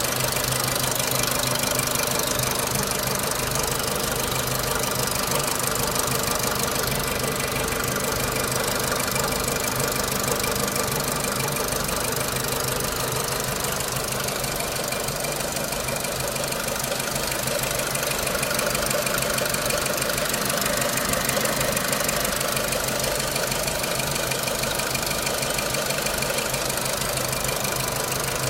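A Renault Clio III 1.4 16v four-cylinder petrol engine with 174,000 km runs steadily with a clattering knock. The owner wonders whether 5W40 oil that is too thin is the cause.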